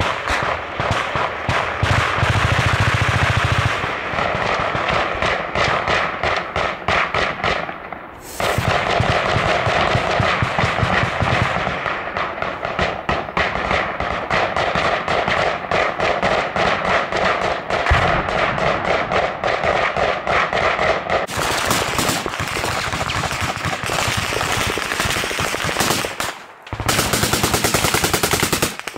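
Close automatic gunfire: long strings of rapid shots. The sound changes abruptly several times, as between edited clips, and is loudest near the end.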